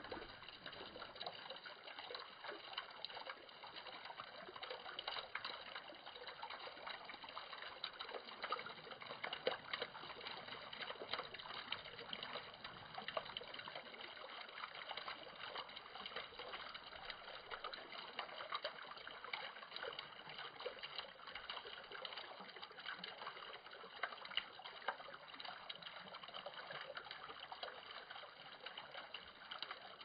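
A stream trickling: a steady faint rush of flowing water, dotted with many small splashes.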